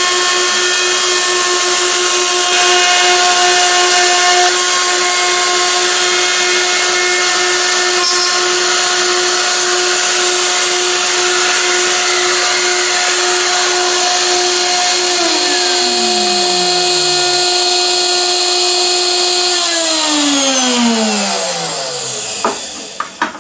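CNC router spindle running with a steady high whine over the hiss of a shop vacuum sucking up perspex chips. In the last several seconds the motors spin down one after the other, their pitch falling until they stop, then a few clicks.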